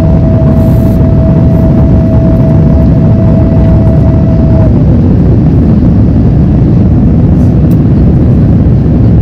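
Loud, steady jet engine and airflow noise of an Airbus A350-900 with Rolls-Royce Trent XWB engines, heard inside the cabin. A steady hum rides on it until about halfway through, then drops slightly in pitch and fades out.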